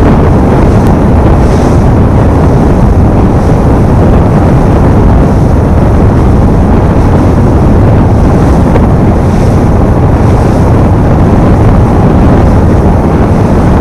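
Wind blasting the microphone of a bass boat running fast across open water: a loud, steady rush of noise with no breaks.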